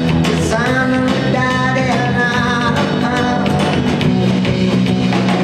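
Live band playing a rock song, with drawn-out melodic notes over the steady band accompaniment.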